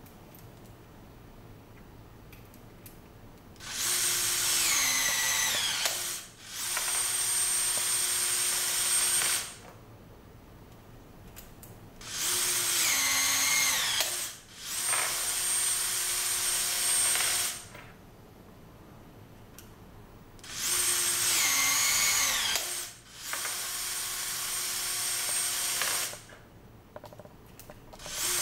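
Cordless brushless electric rivet tool setting 6.4 mm blind rivets, three cycles. Each time the motor whirs with its pitch dropping as it pulls under load, stops briefly, then runs steadily for about three seconds as the mandrel automatically reverses.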